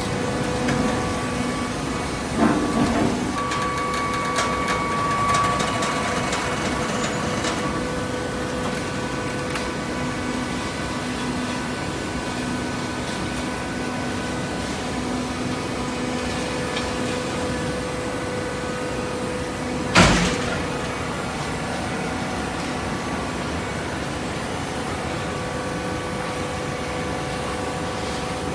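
Cardboard shredder and hydraulic baler machinery running with a steady hum. There are a few knocks around two to three seconds in and one sharp, loud bang about twenty seconds in.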